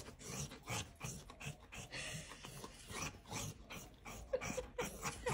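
A black dog making short, irregular breathy sounds as it rolls and rubs its face into a soft blanket, with light rustling of the fabric.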